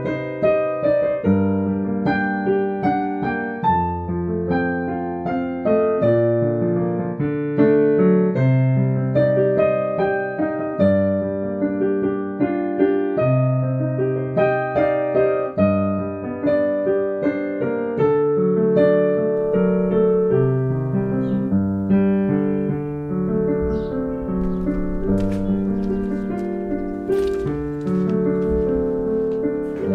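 Background electric piano music, a steady run of keyboard notes. In the last third a low rumble and several sharp clicks sound under it.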